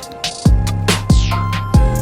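Electronic background music with heavy bass kick drums hitting about twice a second.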